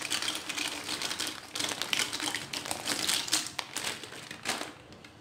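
Dry penne pasta tipped into a steel pan of boiling water: a rapid clatter of hard pasta tubes against the metal, dying away about four and a half seconds in.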